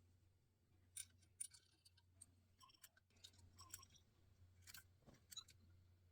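Faint, scattered small clicks and light metallic ticks from hand work on Solex carburetor parts, over a low steady hum.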